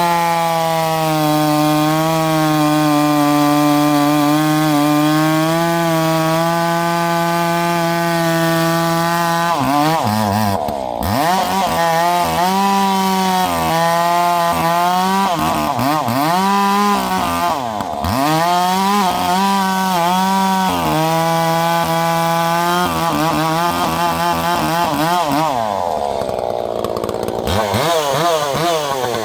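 Two-stroke chainsaw running under load at a steady pitch for about ten seconds. After that the engine revs up and down repeatedly.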